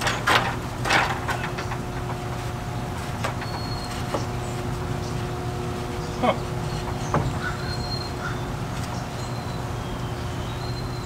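A wooden trim board is handled against a roof edge, giving a few light knocks near the start and again about six and seven seconds in, over a steady low mechanical hum with a faint held tone.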